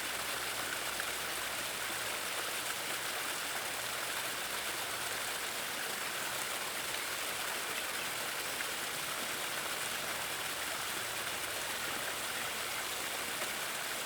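Small garden waterfall, pumped water cascading steadily over rocks with an even, unbroken rush of splashing.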